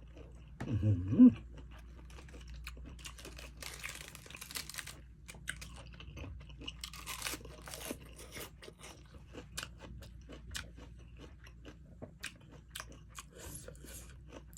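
Close-miked chewing of blanched cuttlefish, with many small wet clicks and crunches of the mouth. About a second in there is a short loud vocal sound from the eater.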